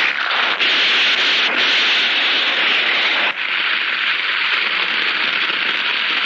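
Cartoon explosion sound effect as the laboratory is wrecked: a loud, steady rush of noise that starts abruptly, with a brief dip about three seconds in.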